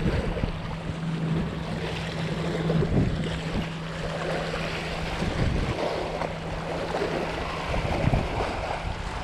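Wind buffeting the microphone over moving river water, with a steady low hum that breaks off briefly about five seconds in.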